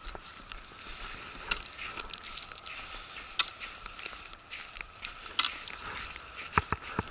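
Footsteps on thin pond ice: irregular crunches and clicks, with two sharper knocks near the end.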